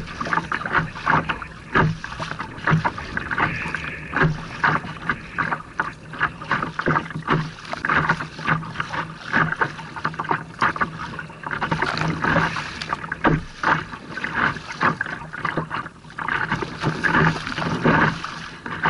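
A kayak paddled through choppy water: waves slap and splash against the hull and the paddle churns the water, with irregular splashes several times a second and spray hitting close to the bow.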